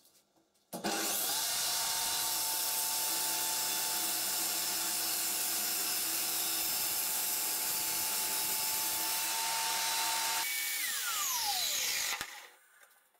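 Circular saw running as the motor of a homemade table saw: it starts abruptly and rips a plywood board with a steady whine. About ten seconds in it is switched off, and its whine falls as the blade spins down. The sound then cuts off sharply.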